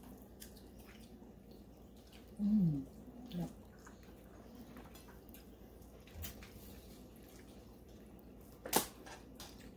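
Quiet eating by hand at a table: small wet clicks of mouth and fingers working on seafood boil, a brief voice sound with falling pitch about two and a half seconds in, and one sharp click near the end.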